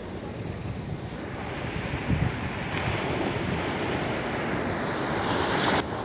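Small surf washing up a sandy beach, the hiss of the breaking waves swelling from about a second in and building, with wind rumbling on the microphone. The sound cuts off suddenly near the end.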